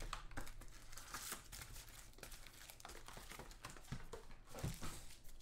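Foil-wrapped trading-card packs crinkling and rustling as they are handled, with faint scattered clicks and taps.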